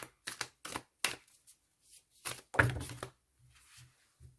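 Tarot cards being handled and set down on a table: a quick run of light clicks and taps, then a louder cluster of taps a little past two seconds in.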